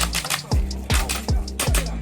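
Background music with a steady beat: deep bass kicks about twice a second with sharper percussion between them.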